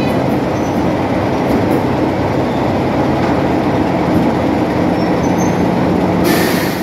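Class 26 diesel locomotive D5314's Sulzer six-cylinder engine running steadily as the locomotive creeps up toward the buffer stops. A short hiss comes in near the end.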